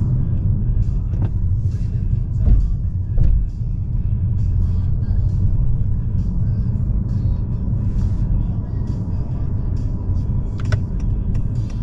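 Cabin noise inside a moving Honda Accord: steady low road and tyre rumble, with two short thumps about two and a half and three seconds in.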